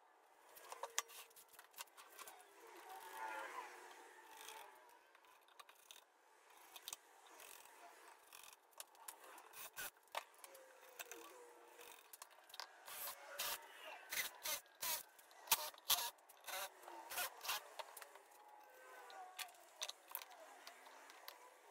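Light clicks, knocks and scrapes of plywood parts and hand tools being handled on a workbench, thickest about two-thirds of the way through.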